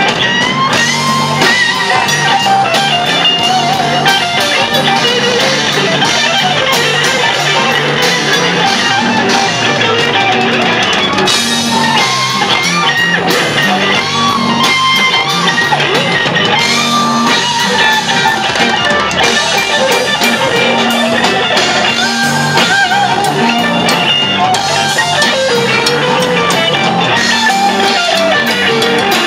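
Live jam band playing an instrumental passage: electric guitar lead and harmonica over mandolin, electric bass and a drum kit, loud and continuous.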